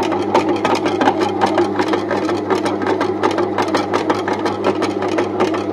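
Electric dough kneader running: its motor hums steadily while the kneading paddle spins a ball of atta dough in the metal pan, with a rapid, irregular run of knocks, several a second. The dough has nearly come together.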